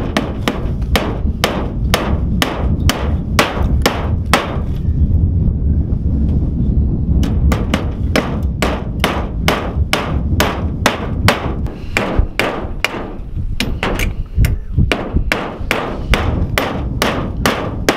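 Repeated hard strikes of a hand tool chopping into lake ice to open a fishing hole, about two blows a second, with a short lull about five seconds in. A low rumble runs underneath.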